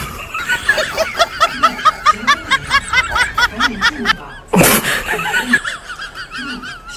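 Rapid laughter, a quick string of short 'ha' bursts about five a second for some three and a half seconds. Then a sudden loud whoosh, with music underneath.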